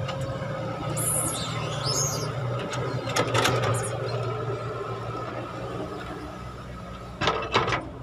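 Caterpillar hydraulic excavator's diesel engine running steadily as it loads a dump truck, with a rush of dirt dropping into the truck's steel bed about three seconds in and a few sharp knocks near the end as the bucket bites back into the soil. A few high, gliding squeaks sound about a second in.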